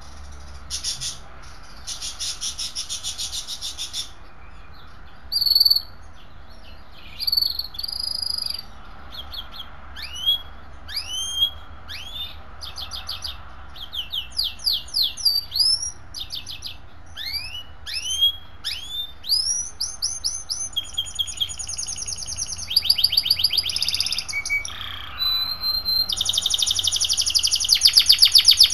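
A songbird singing a varied song in separate phrases: buzzy trills, a series of quick rising sweeps, then a fast, loud trill that runs on through the last few seconds.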